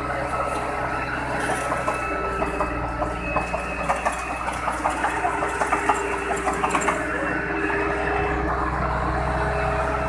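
Volvo tracked asphalt paver's diesel engine running steadily close by, with irregular metallic clicking and rattling over it, busiest in the middle of the stretch.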